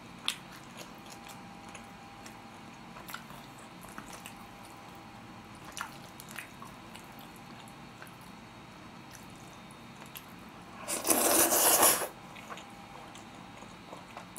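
A person slurping up a mouthful of stir-fried black-bean-sauce noodles (bokkjjajangmyeon) in one loud slurp lasting about a second, near the end. Before it come only faint, scattered clicks of chopsticks against the foam takeout container.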